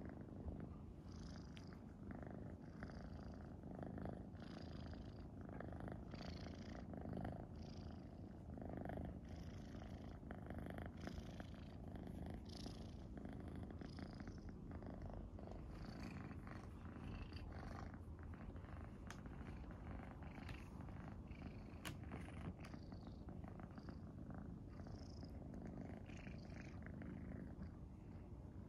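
Domestic cat purring steadily while being rubbed under the chin: a continuous low purr that swells with each breath, about once a second, the ordinary purr of a contented cat.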